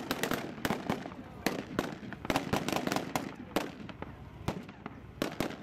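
Scattered small-arms fire from blank rounds: irregular sharp shots, several a second at first, thinning out near the end.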